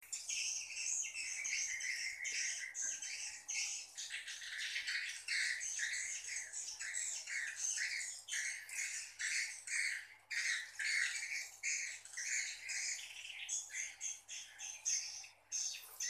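Edible-nest swiftlets chirping: a dense, unbroken stream of short, high twittering calls from many birds overlapping.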